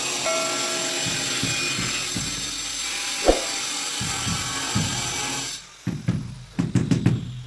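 A power tool runs steadily with a high hiss, with one sharp click about three seconds in, and cuts off abruptly after about five and a half seconds. Evenly spaced knocks follow.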